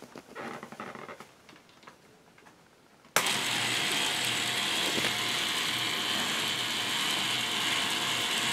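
Four K'nex electric motors driving a train of plastic gear differentials, starting suddenly about three seconds in and then running steadily.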